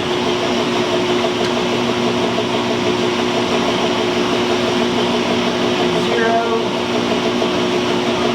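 Metal shaper running and taking a roughing cut across a steel part, with a steady motor hum and no clear breaks.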